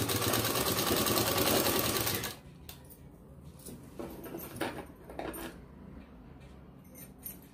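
Sewing machine stitching fast and evenly for about two seconds, then stopping abruptly. A few light clicks follow.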